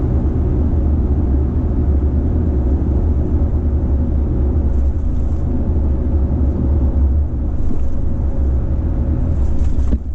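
Steady in-cabin road and drivetrain rumble of a 2021 Toyota Tacoma TRD Off Road pickup cruising on a highway.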